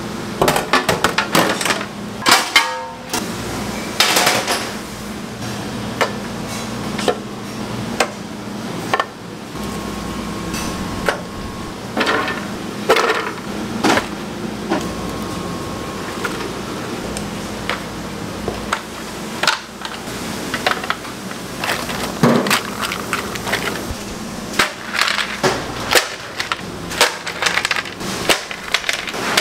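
Kitchen clatter of seafood preparation: irregular knocks, clacks and clinks of hard objects being handled, over a steady low hum.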